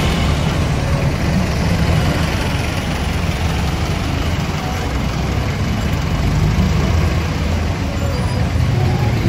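Street traffic noise dominated by a steady low engine rumble from jeepneys running close by.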